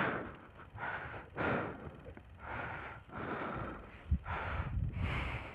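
A person breathing close to the microphone, a rhythmic series of breaths in and out, roughly one breath sound a second.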